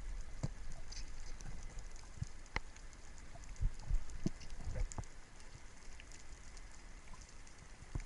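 Underwater ambience: a steady crackle of many small clicks, with a few sharper clicks and some low thumps of water moving around the microphone, strongest around the middle.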